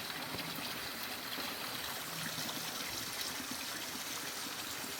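Steady rain falling, an even hiss of water.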